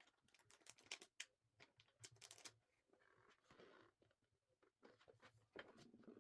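Faint, scattered small clicks and taps of small objects being handled, with a brief soft rustle about three and a half seconds in.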